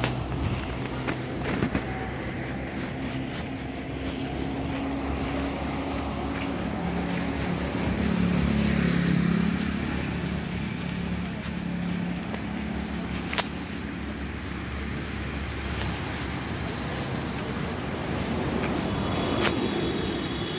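Street traffic: motor vehicle engines running, one growing louder about eight seconds in as it passes close, then fading.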